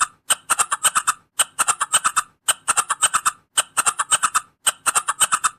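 An animal call made of rapid clicking pulses in repeated bursts, about one burst a second, each burst a quick run of six to eight clicks.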